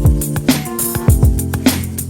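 Background music with a steady electronic beat: kick drums with falling bass thumps about twice a second, hi-hat and held synth notes.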